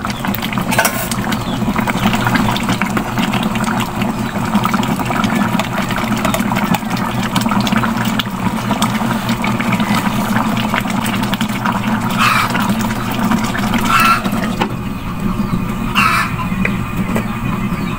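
Stew bubbling at a simmer in an electric cooking pot, a steady crackling bubbling with a low steady hum under it. A few short, sharper clinks come near the end.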